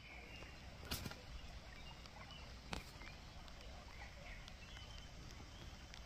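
Faint forest ambience: a low steady rumble with faint, scattered bird chirps, and two sharp clicks, about one second in and again near three seconds.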